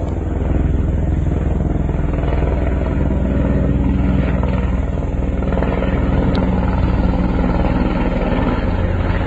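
Helicopter engine and rotor running steadily, a loud drone with a fast, even beat.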